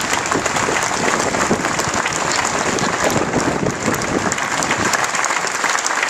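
Large crowd applauding: steady, dense clapping of many hands.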